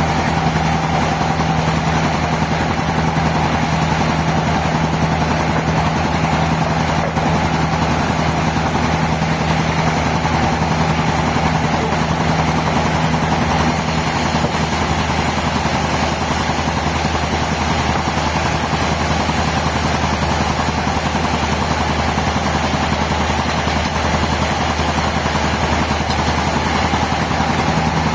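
Sawmill machinery running steadily, with a low hum and a higher steady whine. A high hiss grows stronger from about halfway through until near the end.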